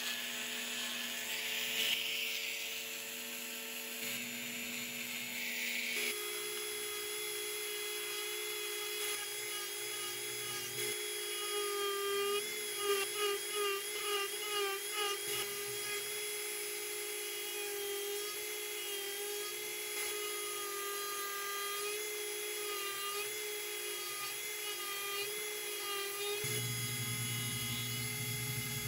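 Dremel 4000 rotary tool on a flex shaft running at high speed with a small sanding bit against a wooden carving: a steady high whine. Its pitch shifts about six seconds in and again near the end, and it wavers for a few seconds in the middle.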